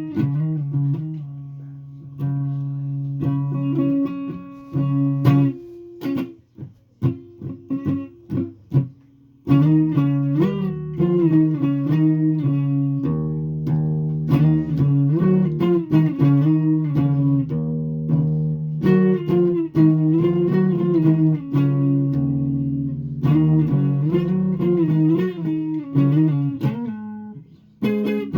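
A guitar played solo in a loose jam: held notes, several wavering with vibrato or bends, and a stretch of short, separately plucked notes with gaps between them about six to nine seconds in.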